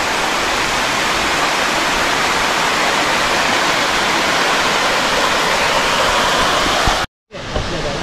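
Tall monsoon waterfall plunging from a great height: a loud, steady rush of falling water. It cuts out for a moment near the end.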